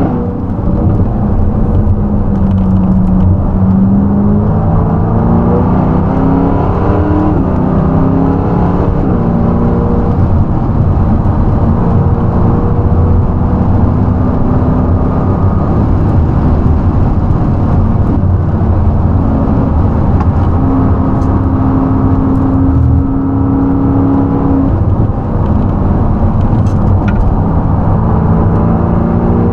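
A V8 sports car engine driven hard on a race circuit, its pitch repeatedly climbing and dropping as it works up and down the rev range, over a constant low road and wind rumble.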